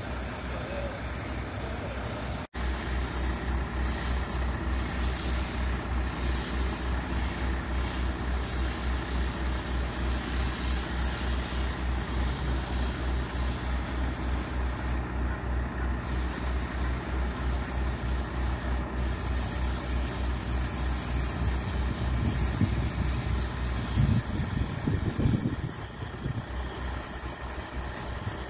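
A large engine idling steadily, a low, even throb, with some louder, uneven rumbling a few seconds before the end.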